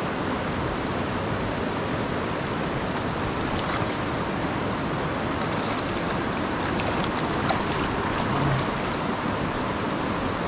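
River water flowing steadily over rocks in a shallow riffle, with a few faint clicks about two thirds of the way through.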